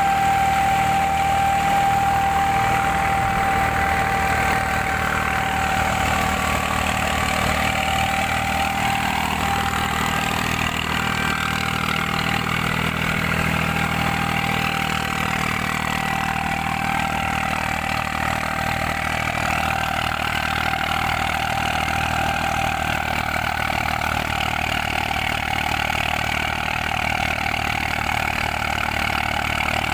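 Eicher 485 tractor's three-cylinder diesel engine running steadily, driving a thresher, with the machinery's continuous hum. A steady high whine is heard over it and fades about a third of the way through.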